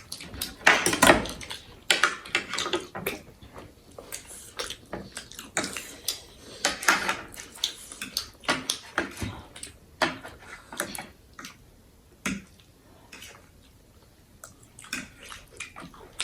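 Eating sounds: cutlery clinking and scraping on dishes, with wet noodle-eating noises, in irregular short bursts that thin out after about ten seconds.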